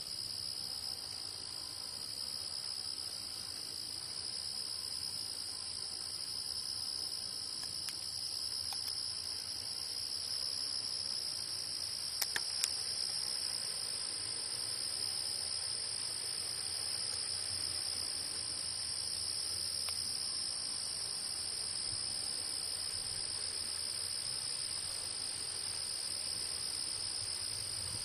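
Steady, high-pitched chorus of singing insects: two continuous shrill trills, one above the other, with a few sharp clicks about twelve seconds in.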